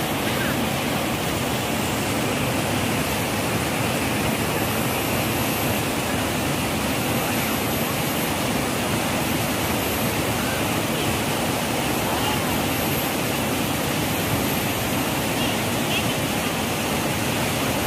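Rain-swollen, muddy jungle river rushing through rapids over large boulders: a steady, loud whitewater rush.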